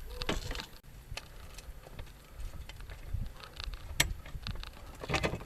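Scattered light clicks and knocks of metal hardware being handled while an aluminium wheel plate is lined up and bolts are fitted, with one sharp knock about four seconds in and a few more near the end.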